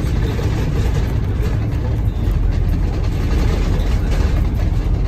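Wright Gemini 3 double-decker bus driving at steady speed, heard from inside the cabin: a steady low diesel engine drone under road and tyre noise.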